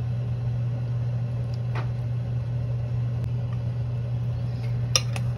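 A steady low hum throughout. Over it come a few light clicks of wooden chopsticks against the metal pot as noodles are lifted: one faint click about two seconds in and two sharper ones close together near the end.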